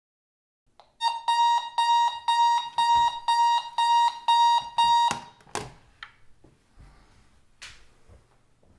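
Digital alarm clock beeping, a fast repeating high-pitched beep that cuts off suddenly as a hand slaps it off, with a sharp knock, followed by a few fainter knocks and a rustle.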